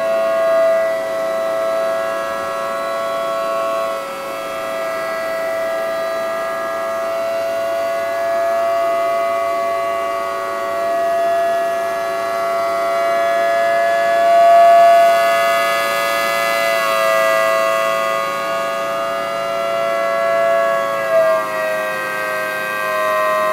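3D-printed miniature Thunderbolt siren with 5/6-port choppers sounding a steady chord at full speed. Its rotating horn makes the sound swell and fade as it sweeps, and the pitch sags slightly near the end.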